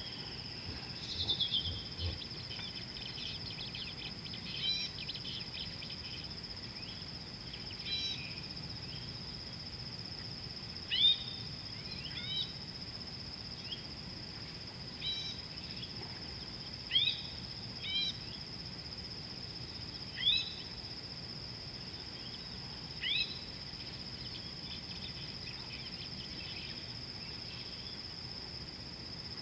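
A steady, high-pitched insect chorus, like crickets, with a bird giving short, downward-sweeping calls every one to three seconds, some of them in pairs.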